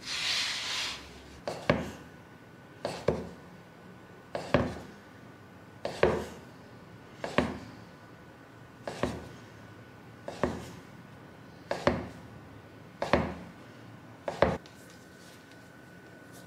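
Kitchen knife cutting folded noodle dough into strips, each stroke ending in a knock on the wooden cutting board: about ten cuts, one every second and a half, each a quick double knock. A brief rustle comes at the start.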